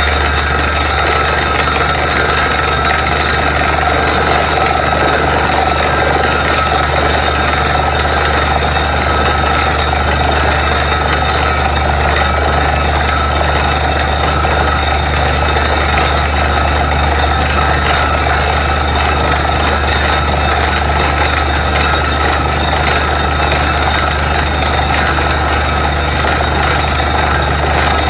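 Truck-mounted borewell drilling rig running steadily with a deep, unbroken engine drone and a steady whine above it.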